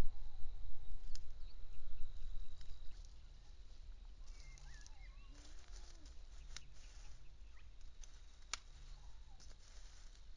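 Outdoor ambience: a low rumble for about the first three seconds, then faint bird calls and a few sharp clicks.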